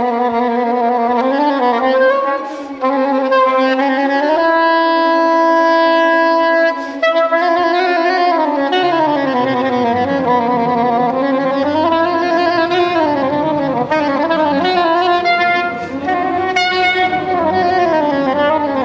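Soprano saxophone playing a solo melody with vibrato over a string orchestra, holding one long steady note about a third of the way in. Lower strings come in beneath it about halfway through.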